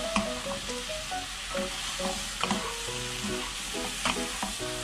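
Button mushrooms and bell peppers sizzling as they are stir-fried in a wok, with wooden spatulas scraping and tossing them and a few sharp knocks of the spatulas on the pan.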